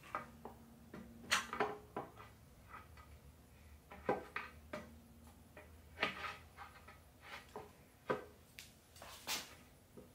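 Metal parts and hand tools being handled, with irregular knocks and clinks, a few of them ringing briefly.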